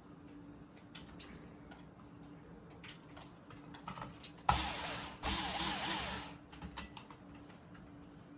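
Light clicks and ticks of screws and small parts being handled, then about halfway through two short bursts of a cordless power driver running, each about a second long with a brief pause between, driving screws into the fan's plastic light-kit housing.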